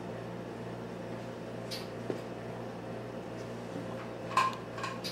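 A few sharp metallic clinks and taps from the rose engine lathe's metal parts being handled, the loudest about four seconds in with a short ring. Under them runs a steady low hum.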